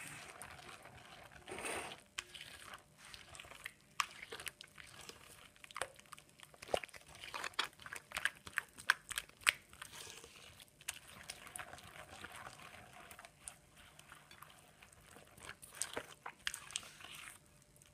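A bare hand mixing wet cake batter of eggs, sugar, butter and oil in a glazed clay dish: a dense, irregular run of wet clicks and squelches.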